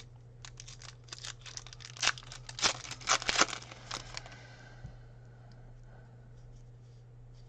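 Foil wrapper of a trading-card pack being torn open and crinkled by hand: a run of crackling rips from about half a second to four seconds in, loudest near the three-second mark. A steady low hum lies underneath.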